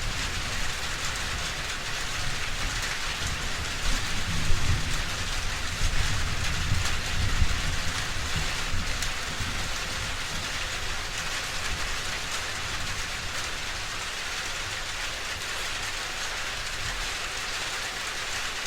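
Steady heavy rain falling, with a low thunder rumble that swells about four seconds in and dies away over the next few seconds.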